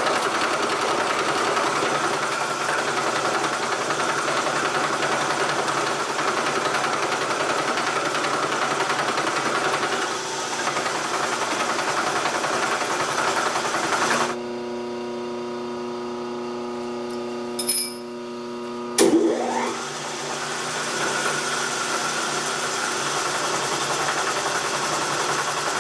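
Vertical milling machine boring into an aluminium block, the spindle running with a steady whirring cutting noise. About fourteen seconds in the cutting noise drops out abruptly to a cleaner, steady machine hum, with two short clicks a second apart, and the noisier cutting sound comes back about twenty seconds in.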